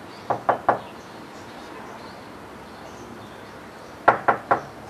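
Knuckles knocking on a panelled front door: three quick knocks, then a pause of about three seconds, then three more.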